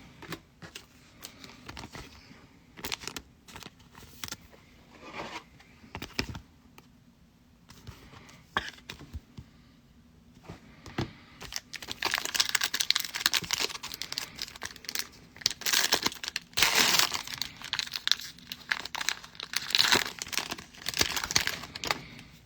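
Scattered light clicks and rustles of cards being handled, then, from about halfway in, a trading card pack's plastic foil wrapper being torn open and crinkled.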